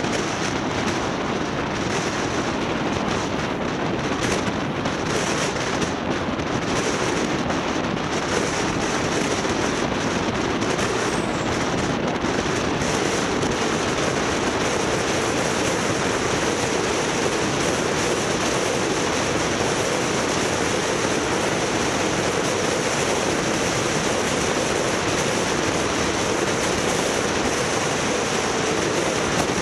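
Steady rushing noise of wind and road from a moving vehicle, with no distinct events.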